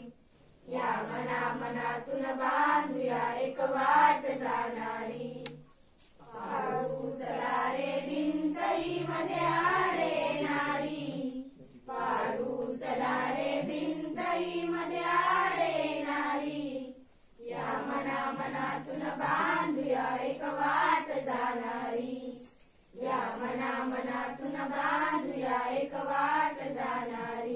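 A group of schoolchildren singing a Marathi awareness song (prabodhan geet) together, unaccompanied, in phrases of about five or six seconds with short pauses for breath between them.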